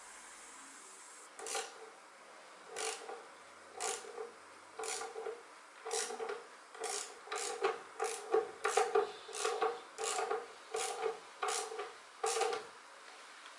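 About fifteen squeaky, rasping strokes in a row, speeding up from about one a second to about two a second, then stopping shortly before the end.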